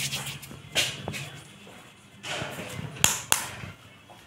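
Hands patting, rubbing and turning a flour-dusted ball of potato-stuffed dough: a few soft swishes, with two sharp clicks a little after three seconds in.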